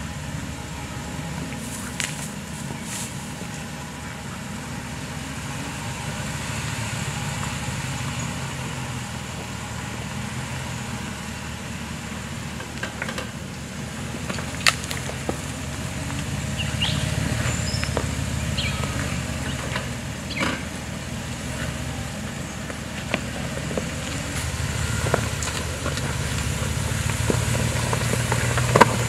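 Jeep Wagoneer's engine running at low speed as the SUV crawls over loose rocks, its note swelling a few times. Scattered sharp clicks and knocks of stones shifting under the tyres sound over it.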